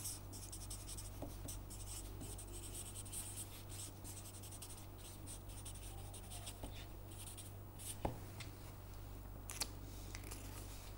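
Felt-tip marker writing on paper: a faint run of short scratchy strokes, with a couple of sharper clicks near the end, over a low steady hum.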